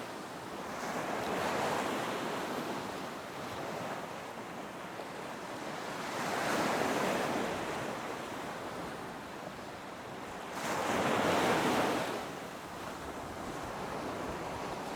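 Ocean surf: waves breaking and washing in, swelling and fading about every five seconds, with the loudest break about eleven seconds in, and some wind on the microphone.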